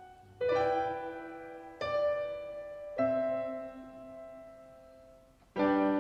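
Slow, soft piano music: chords struck about every second or so, each left to ring and fade, with a longer pause before a fuller chord near the end.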